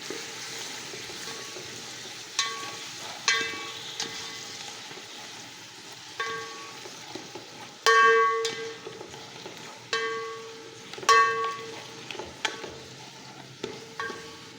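Cut pumpkin sizzling in hot oil in a metal pot on a high flame while a metal spatula stirs it. The spatula strikes the pot about ten times at irregular intervals, each clang ringing briefly.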